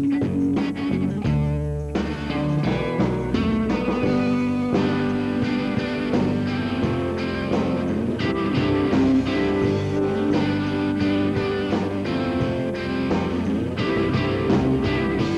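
Background music led by guitar, in a rock style.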